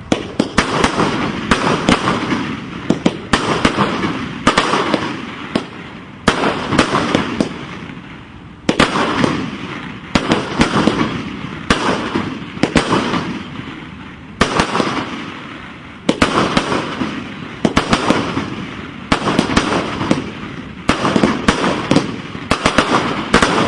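Fireworks going off: sharp bangs, each trailing into crackling that dies away, with a fresh volley every second or two.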